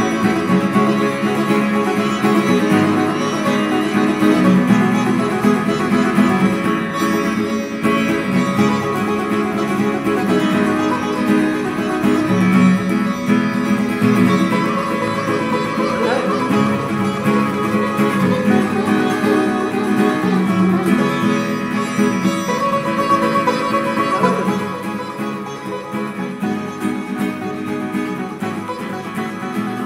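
Sitar being played, a flowing improvised melody of plucked and fretted notes over its ringing strings. The playing grows quieter near the end.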